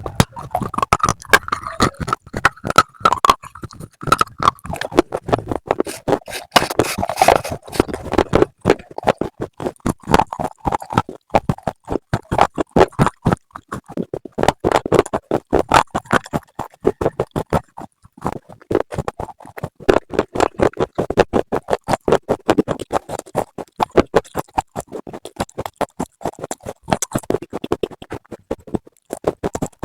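Close-up crunching of hard, brittle slate pieces being bitten and chewed, with sharp crunches coming several times a second without pause.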